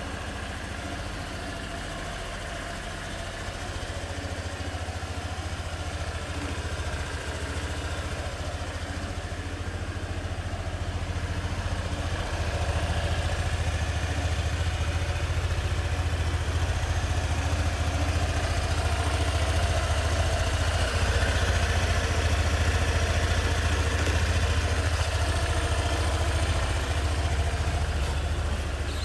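Honda PCX125 scooter's single-cylinder four-stroke engine idling with a steady low hum, growing louder over the first dozen seconds or so.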